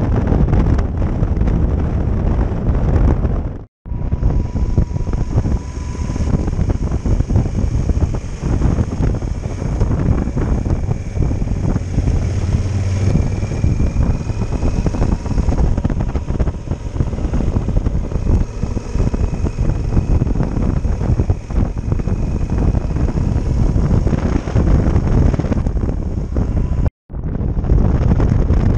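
Motorcycle riding along at road speed, its engine under heavy wind buffeting on the microphone. The sound drops out for an instant twice, once a few seconds in and once near the end, at edit cuts.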